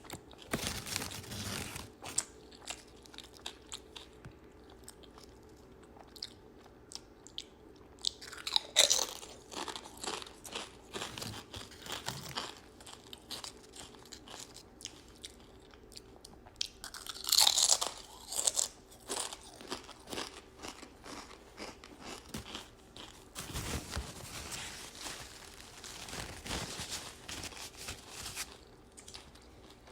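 A person eating close to the microphone: chewing with crisp crunches, the loudest bursts of crunching coming about nine seconds in and again about seventeen seconds in.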